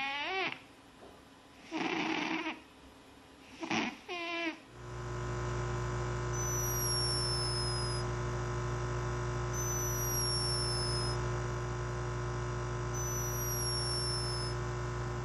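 A cat meows three times in short, bending calls. Then a steady, even purr-like drone takes over, with a faint high whistle falling three times about three seconds apart, like a nose whistling on each breath of a sleeping animal.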